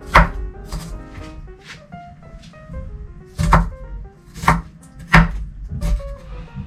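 Knife chopping an onion on a cutting board in slow, irregular strokes, roughly one a second, over background music.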